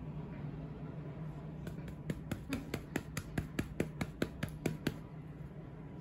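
A hand patting a sleeping baby's bottom through the nappy and pants, a quick even run of soft pats, about five a second, from about two seconds in until about five seconds in.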